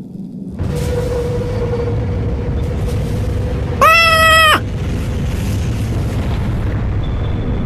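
A short, flat-pitched, cat-like 'waapp' meme sound effect, the loudest thing heard, about four seconds in. Under it runs a steady low rumbling noise that starts just under a second in.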